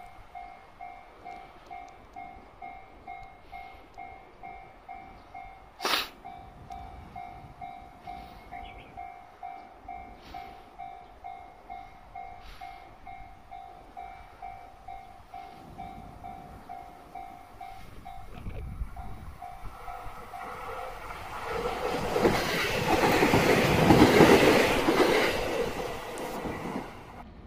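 Level-crossing warning bell ringing about twice a second, stopping roughly three-quarters of the way through. A JR West 227 series electric multiple unit approaches and runs past, its noise building to a peak near the end. One sharp click about six seconds in.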